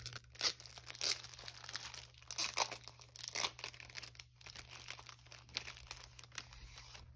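Clear plastic sleeve of a sticker kit crinkling and rustling as it is opened and the sticker sheets are handled: irregular crackles, busiest in the first few seconds and thinning out toward the end.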